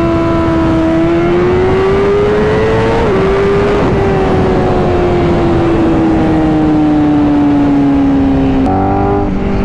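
Honda CBR1000RR-R Fireblade SP's inline-four engine under way: its pitch rises for about two seconds, dips at a gear change about three seconds in, then slowly falls, and drops a step near the end. Heavy wind noise runs underneath.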